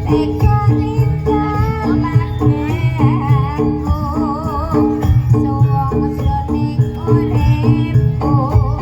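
Live Javanese jaranan (kuda lumping) music: a gamelan-style ensemble with a steady pattern of repeated metal-percussion notes over loud drumming, and a wavering melody line above it about halfway through.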